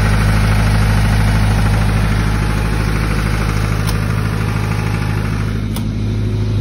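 Tata Cummins 4BT four-cylinder diesel engine of a 50 kVA generator set running at a steady speed, an even loud hum. Two sharp knocks come about four seconds in and near the end as a canopy door is handled and shut, after which the engine sounds duller.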